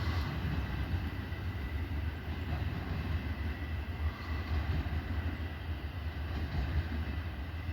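Intermodal freight train rolling on past, a steady low rumble of wheels on the rails.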